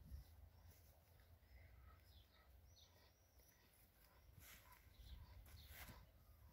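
Near silence, with faint bird chirps and a couple of soft rustles.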